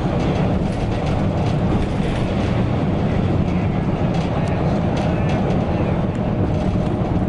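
A large bus on the move: a steady, loud rumble of engine and road noise.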